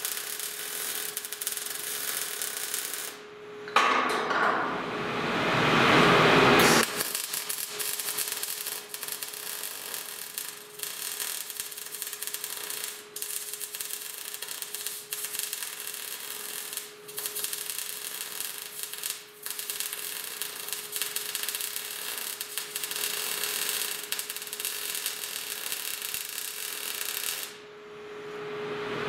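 MIG welder arc crackling steadily as steel filler plates are welded to a steel prop tube, with a steady hum underneath. The arc breaks off briefly twice, and one stretch about four seconds in is louder and harsher for about three seconds.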